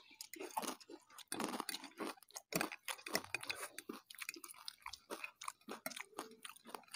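People chewing mouthfuls of noodles close to a clip-on microphone, with many short, irregular crunches and mouth noises.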